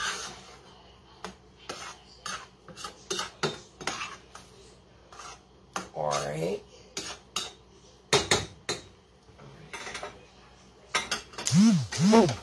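A utensil scraping and clinking against a metal skillet as food is stirred, in short irregular strokes about two or three a second. Near the end come a louder cluster of clanks as the pots beside the pan are handled.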